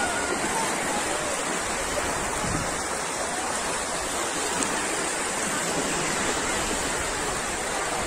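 Steady, unbroken rush of Baltic Sea surf.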